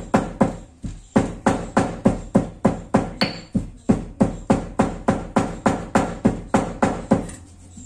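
Stone pestle pounding a dry mix of coconut, peanuts, black pepper and cashews in a black stone mortar (khalbatta), a steady beat of sharp knocks about two a second that stops shortly before the end.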